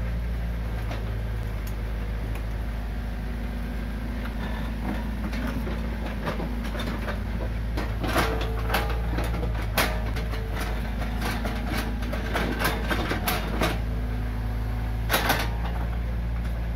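Komatsu PC45 mini excavator's diesel engine running steadily as it digs. Sharp clanks and knocks come mostly in the second half, as the steel bucket strikes soil and concrete U-drain sections.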